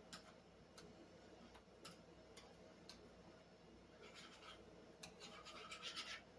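Near silence, with a few faint clicks and a soft scraping sound from about four seconds in, typical of kitchen utensils being handled.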